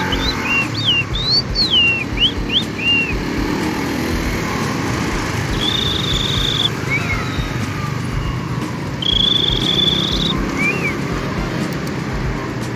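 A man whistling imitations of birdsong. It opens with a quick run of rising-and-falling chirps for about three seconds, then two long, high, held notes, each followed by a short chirp. A steady low background noise runs underneath.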